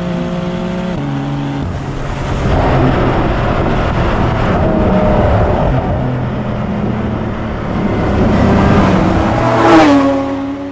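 Porsche 911 (992) GTS twin-turbo flat-six engine and exhaust driven hard: it climbs in pitch, changes up a gear about a second in, then runs loud under load. Near the end it surges sharply and then settles to a lower steady note.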